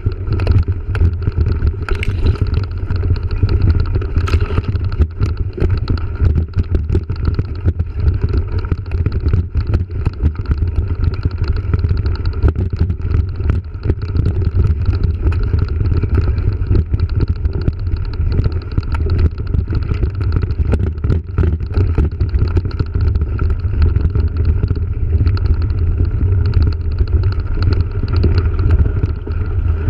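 Wind rumbling on an action camera's microphone on a moving mountain bike, with frequent rattles and knocks from the bike jolting over a rough dirt singletrack.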